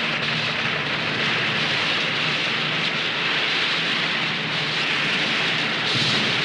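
Steady rushing noise like heavy rain, with a faint low hum underneath early on.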